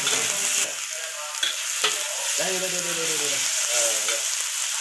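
Chopped aromatics sizzling in hot oil in an aluminium wok, stirred and scraped with a slotted metal turner, which clicks against the pan a couple of times.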